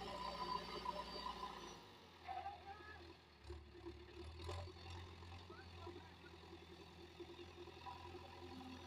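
Diesel engine of a loading machine running steadily with a low hum, with a few faint knocks in the first half.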